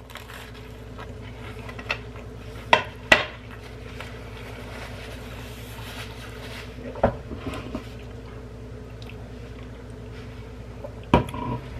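A man eating a toasted grilled cheese sandwich and handling a napkin and a drink can: scattered short clicks and knocks, two close together about three seconds in, another midway and a sharper one near the end, over a steady low hum.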